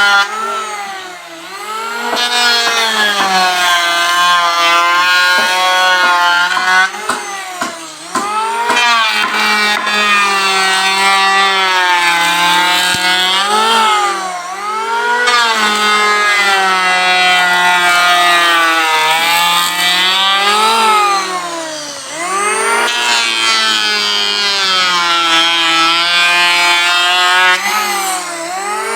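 Electric woodworking power tool running and cutting wood: its motor whine sags in pitch each time it bites into the wood, then climbs back, over and over.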